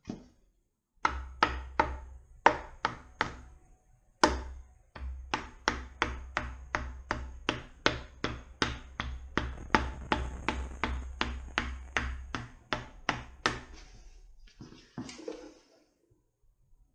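Rubber mallet tapping an aluminium oil pump onto a Mazda Miata 1.8 engine block, working the tight-fitting front main seal over the crankshaft: a long run of light, even taps, about three a second, with a short break about four seconds in. The tapping stops a few seconds before the end, followed by a brief rustle.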